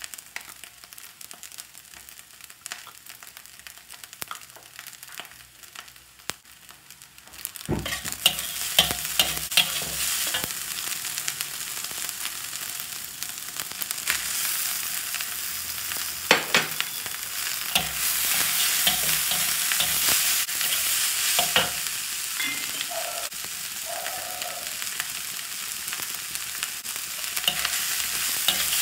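Fried rice stir-frying in a wok, with a metal wok spatula scraping and clanking against the pan over a sizzle. At first there are only quieter clinks of a spoon scooping corn from a can. About eight seconds in, the sizzle and stirring grow much louder and run on steadily.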